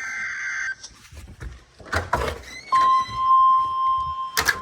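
NOAA Weather Radio alert: a short buzzy SAME data burst at the start, then about two and a half seconds in the steady 1050 Hz warning alert tone starts and holds, the signal that a warning is about to be read. A sharp knock sounds near the end.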